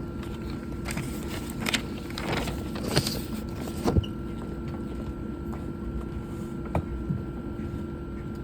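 Low rumbling background noise with a steady electrical hum, broken by scattered clicks and knocks and a brief rustling stretch about one to three seconds in.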